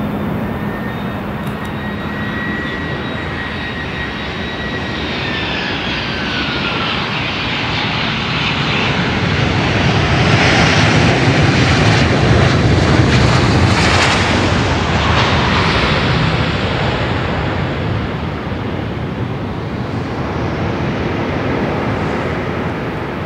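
Four-engine Airbus A340 jetliner with CFM56 turbofans landing: steady jet noise with an engine whine falling in pitch in the first few seconds, then a louder rush from about ten to sixteen seconds in as the thrust reversers are deployed after touchdown, easing off as the aircraft slows.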